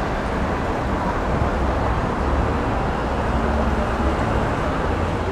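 Steady road traffic noise: a dense rumble of passing vehicles with no break.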